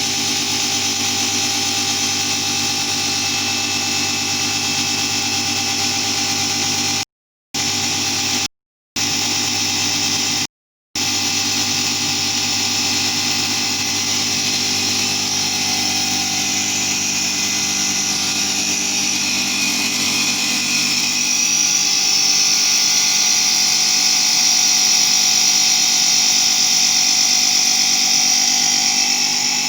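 CNC router spindle running with a steady, many-toned whine. The sound cuts out completely three times, briefly, between about seven and eleven seconds in, and grows louder and brighter about two-thirds of the way through.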